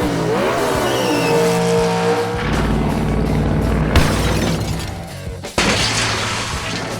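Background music overlaid with dubbed monster truck engine sound effects: an engine revving up and down at the start, then a low rumble. A sharp knock comes about four seconds in, and a sudden crash-like burst of noise follows about a second and a half later.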